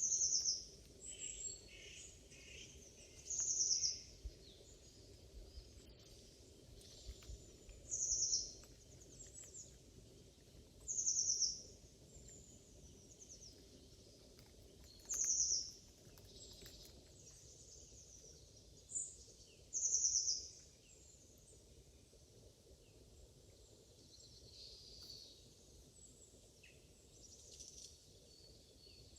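A wild songbird repeating a short, high call about every three to five seconds, with fainter chirps between the calls.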